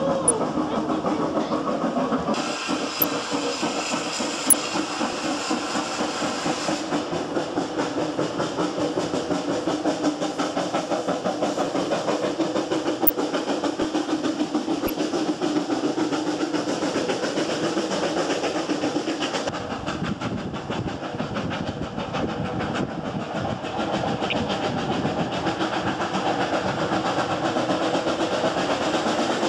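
GWR steam railmotor No. 93, a passenger carriage with its own small steam engine, running along the line: a steady rumble and clatter of wheels on rail, with steam hissing. The sound changes abruptly a few times, between riding inside the carriage and hearing it pass from the lineside.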